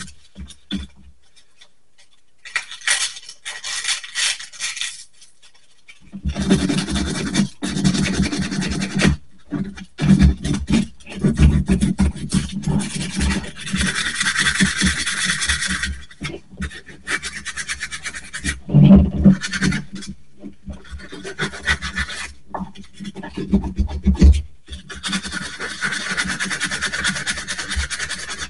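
Hand-sanding small cast-resin figures with sandpaper: rasping rubbing strokes in runs that stop and start, with short pauses.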